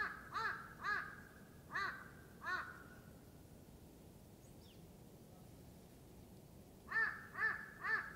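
A bird calling: five short, arched calls in quick succession, then after a pause of about four seconds, three more near the end.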